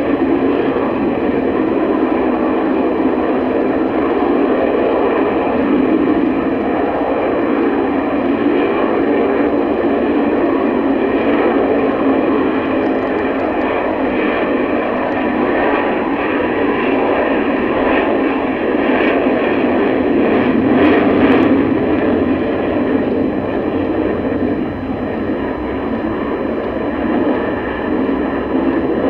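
Sukhoi Su-30 twin-engine fighter jet in flight overhead: steady jet engine noise with a faint high whine, easing off slightly near the end.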